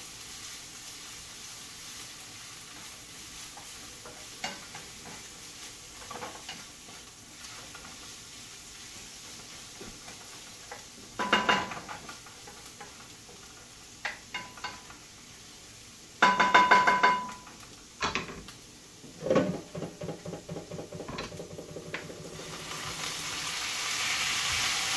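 Minced garlic sizzling gently in oil in a frying pan while a wooden spoon stirs and scrapes it, with a few louder, clattering knocks of kitchenware in the middle. Near the end, seared beef cubes are tipped into the pan and the sizzle swells into louder frying.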